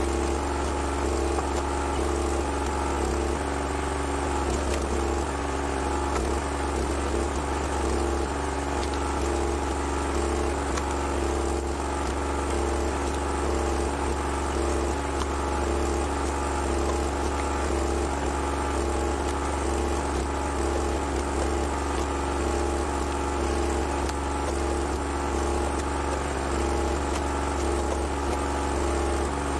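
Small gasoline engine of a 22-ton Rugged Made log splitter, running steadily to drive its hydraulic pump.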